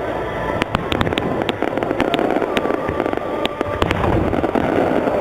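Aerial fireworks display: a rapid, irregular series of sharp bangs and crackles over a continuous rumble of bursting shells.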